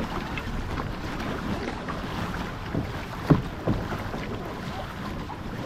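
Water rushing and splashing along an outrigger racing canoe's hull as the crew paddles hard, with wind buffeting the microphone. A few sharper splashes from paddle blades stand out, the loudest about two-thirds of the way in.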